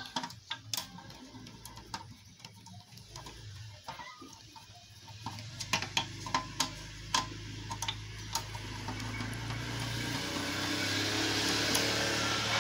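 Screwdriver working the screws of an amplifier's metal back panel: scattered sharp ticks as the tip seats and slips in the screw heads, then a scraping rasp that builds from about two thirds of the way in as the screws are turned.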